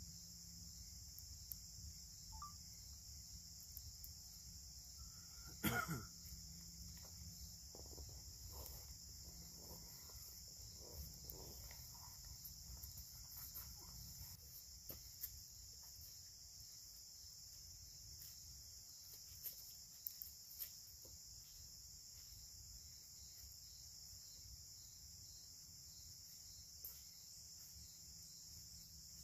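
Faint steady chirring of crickets, with scattered small pops and crackles from a freshly lit campfire and one sharp knock about six seconds in.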